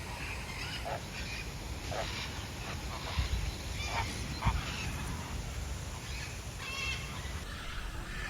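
Flamingos honking: short goose-like calls, several in a row a second or so apart, over a steady low background rumble.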